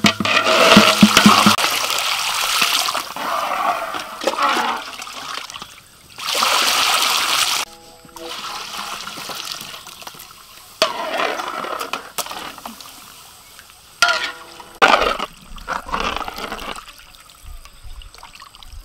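Liquid pouring and splashing into a large wok of sauce in several separate pours. The longest is a steady rush of about a second and a half, near the middle.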